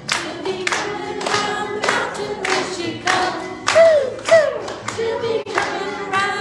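A group singing a children's action song to music, with a steady beat of claps about every half second or so. Near the middle come two short falling vocal swoops, the loudest sounds.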